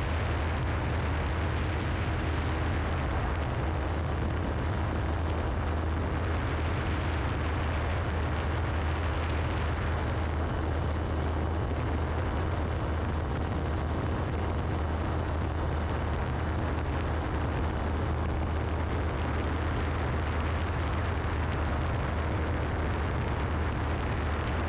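FlightStar ultralight's engine and propeller running at a steady cruise setting: a constant low drone under a broad rush of wind over the wing-mounted microphone.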